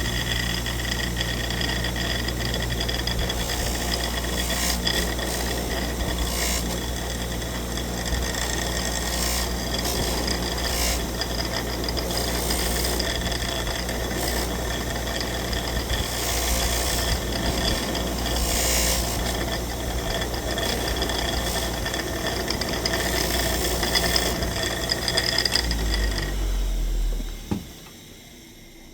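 Bench grinder running with a steady motor hum, with a rough abrasive rasp that comes and goes as a metal part is pressed against the spinning wheel. Near the end it is switched off and winds down to a faint hum.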